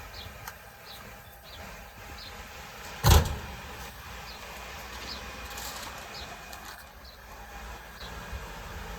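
A single loud thump about three seconds in, with faint short high chirps repeating about once a second.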